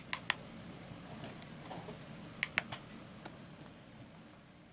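Plastic rocker switches on a newly wired switch board clicking as they are flipped, in two quick pairs about two seconds apart. Behind them is a steady high trill of crickets.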